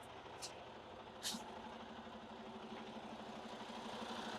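Truck engine idling with a steady, even pulse. Two brief sharp clicks come about half a second and just over a second in.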